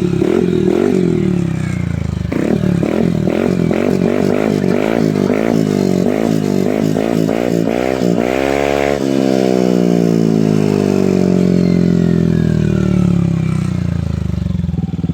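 Yamaha Aerox 155 scooter's single-cylinder engine through an open TRC aftermarket pipe with the silencer removed, revved in a string of quick throttle blips. About eight seconds in it is wound up sharply to high revs, then winds down in one long falling sweep back to idle.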